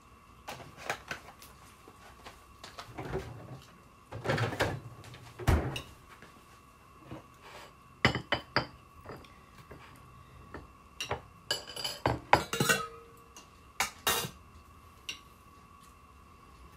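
Forks and knives clinking against plates in irregular bursts as two people eat a meal, over a faint steady hum.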